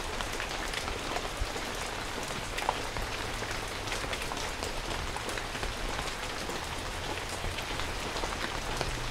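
Steady rain falling on shallow floodwater standing over a lawn, with many small drop hits on the water's surface.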